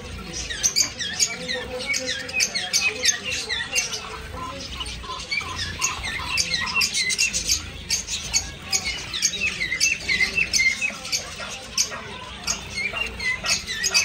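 A cage of munia finches (black monias, sold as black Bengali finches) chirping, many short high calls, some dipping in pitch, overlapping without pause. Scattered light clicks and wing flutters come from birds flying between the perches.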